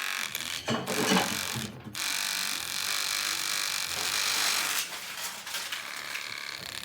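Small handheld electric milk frother whirring, cutting out briefly twice in the first two seconds and then running on steadily.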